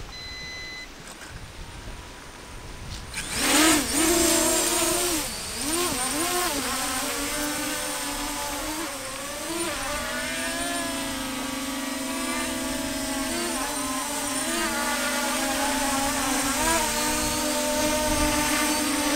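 Phoenix quadcopter drone's motors and propellers spinning up about three seconds in and whining as it lifts off and hovers, the pitch wavering up and down as it is steered. A short beep sounds at the very start.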